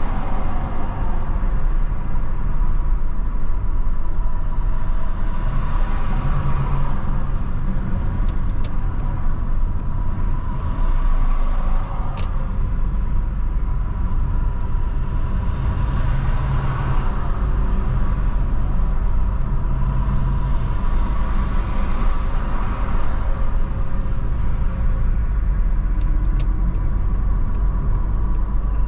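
Steady low rumble of engine and tyre noise from a car driving at road speed, with a faint steady high tone running through it.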